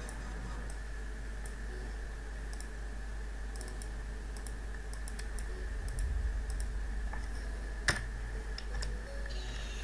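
Scattered clicks of a computer keyboard and mouse, with one louder click about eight seconds in, over a steady low hum.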